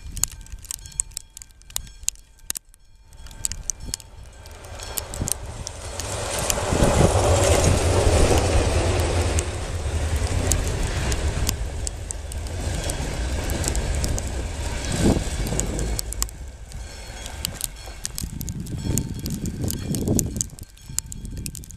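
Passenger train of coaches passing close by: a rumble builds over several seconds, is loudest about seven to nine seconds in, carries on with a rapid clatter of clicks from the wheels, then fades as the train pulls away.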